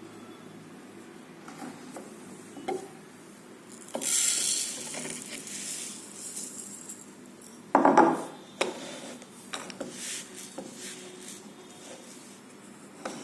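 Kitchen clatter: dishes and utensils knocking and clinking now and then, with a hissing rush lasting about a second some four seconds in and a loud knock about eight seconds in.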